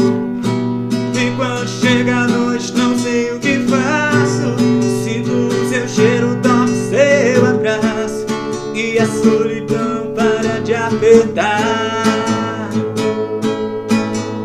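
Instrumental break in a sertanejo song: strummed acoustic guitar under a melodic lead line.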